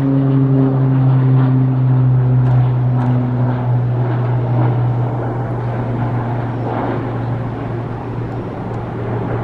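Airbus A330-900neo's Rolls-Royce Trent 7000 turbofan engines running, a steady low hum over a rushing noise, the hum slowly dropping in pitch as the loudness eases off.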